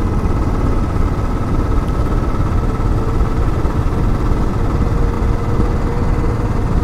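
Motorcycle engine running steadily at cruising speed on the road, heard from the rider's seat with a constant low rumble.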